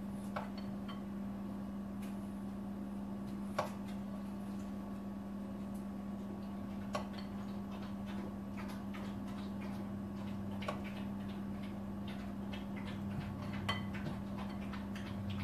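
Scattered light clicks and taps of a tablespoon against the bowl and mini cupcake tin as cornbread batter is spooned into the cups, over a steady low hum.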